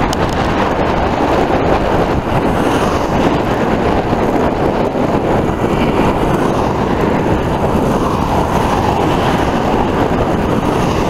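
Steady rushing noise of riding a bicycle along an asphalt road: wind over the microphone and tyre noise, with no distinct events.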